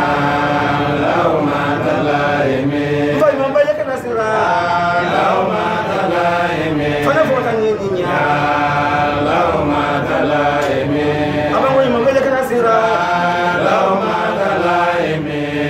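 A man's voice chanting an Islamic recitation, a continuous melody of held notes that slide up and down without pause.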